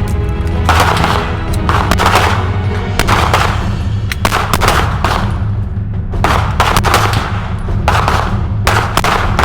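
Pistol shots on a firing range, single rounds fired roughly a second apart in a slow warm-up string, over background music with a steady low beat.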